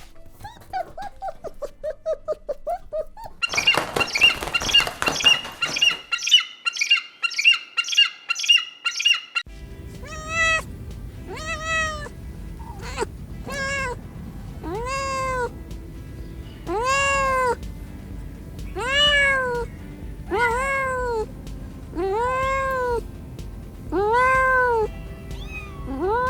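Domestic cat meowing over and over, one rising-and-falling meow about every second and a half through the latter two-thirds, with background music. Before that, a rapid series of high chirping pulses lasts about six seconds.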